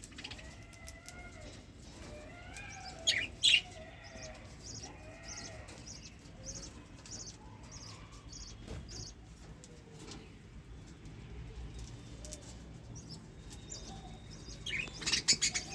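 A group of budgerigars chattering: short high chirps repeating about twice a second over warbling calls, with two louder bursts, about three seconds in and near the end.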